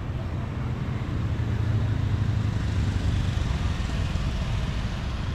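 Steady low rumble of a motor vehicle in motion, swelling slightly around the middle.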